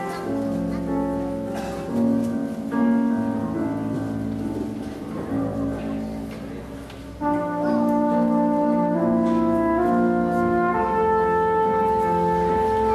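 Live band music: a trumpet holding long notes over piano and bass. The music is softer in the first half and grows louder about seven seconds in, when the held brass notes come in.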